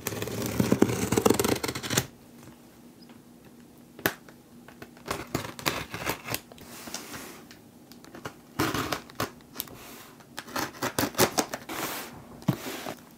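Box cutter blade slicing through packing tape on a cardboard box: one long scratchy cut in the first two seconds, then a run of shorter cuts, scrapes and clicks against the cardboard.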